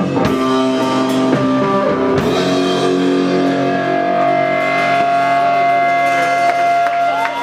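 Rock band playing live, electric guitars over a drum kit. From about two seconds in the drum hits thin out and a chord is held, ringing on.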